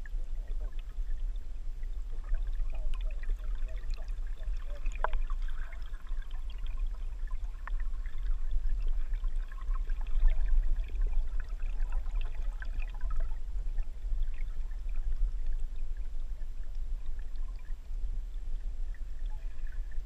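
Underwater sound from a submerged camera: a steady low rumble with scattered small clicks and crackles of moving water.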